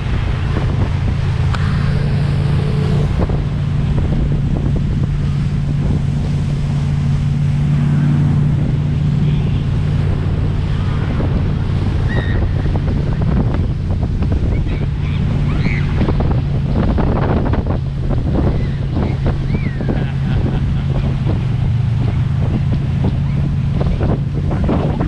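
Motorboat engine running at a steady pitch, with wind buffeting the microphone and water rushing and splashing, the splashes heaviest about two-thirds of the way through.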